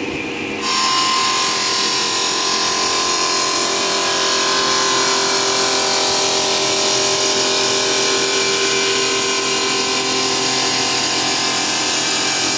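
CNC cutting machine running, its sound jumping suddenly louder and harsher with a hiss under a high steady whine about a second in, then holding steady.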